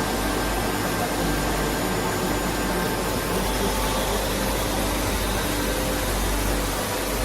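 Tornos-Bechler Deco 2000/20 CNC lathe running under power: a steady machine hum and hiss with a few faint steady tones.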